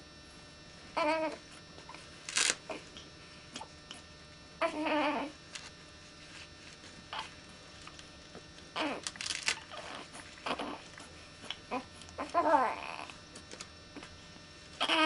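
A young baby fussing with several short, whiny cries spaced a few seconds apart, one near the end sliding down in pitch. A few sharp crackles of a disposable diaper being fastened come in between.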